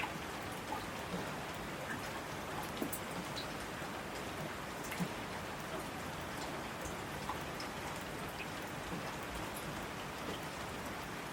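Steady rain falling, a constant hiss of rainfall with scattered individual drops ticking on a surface.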